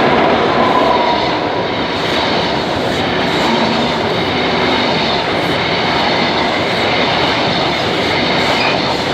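High Speed Train (class 43 HST) passing at close range: a loud, steady rush of wheels on rail with regular clicks of the wheels over rail joints.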